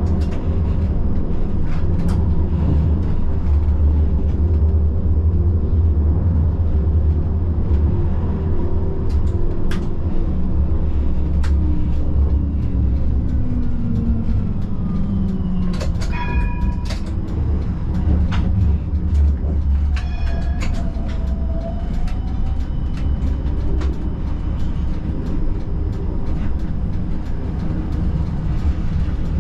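Siemens Combino tram running on its rails, heard from the driver's cab: a steady low rumble with scattered clicks from the wheels. A whine falls in pitch about halfway through, and brief ringing tones come twice soon after.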